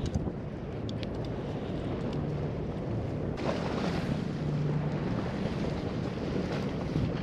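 Wind buffeting the microphone over the steady wash of the sea, with a low hum that comes and goes a few times.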